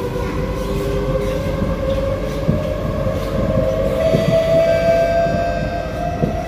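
SMRT C151A electric train heard from inside the car, its traction motors whining with a slowly rising pitch as it picks up speed, over steady running noise. A few soft knocks come through from the running gear.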